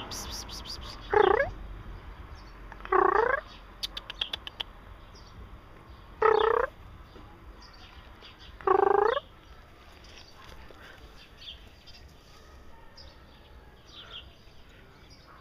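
Kitten meowing four times, short calls a few seconds apart.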